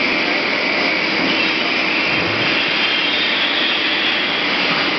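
Steady industrial machinery noise from an aluminium billet heating furnace and hot shear line: an even, unbroken rushing sound.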